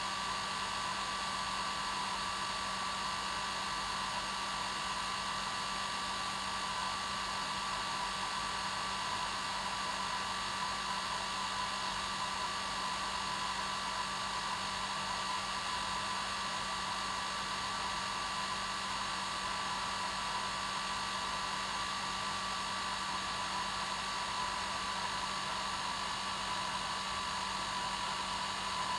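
Hair dryer running steadily on its normal setting: a constant rushing hiss of air with a steady whine from its motor and fan, unchanging throughout.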